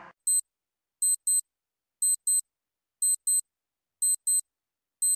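Quiz countdown timer sound effect: short, high-pitched clock ticks in pairs, one pair each second, with silence between.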